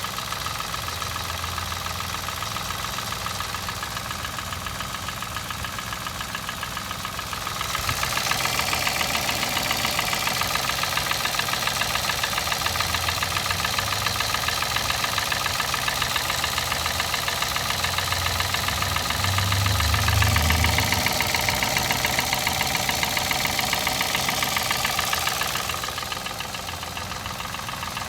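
Peugeot 107's 1KR-FE three-cylinder petrol engine idling warm with a steady rhythmic knock. The knock is the fault the owner is showing, and it appears once the engine is warmed up. The sound gets louder and brighter from about a quarter of the way in until shortly before the end.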